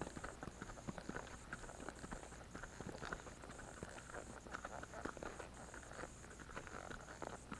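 Faint hoofbeats of a horse walking on a dirt and gravel road, an irregular run of soft clops.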